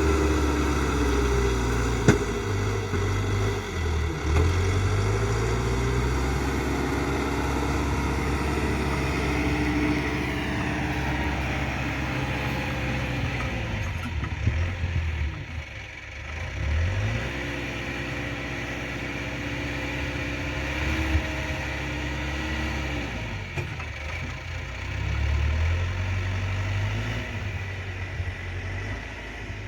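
Backhoe's diesel engine running steadily, its revs dropping and climbing again several times as the machine works, with a few sharp knocks along the way.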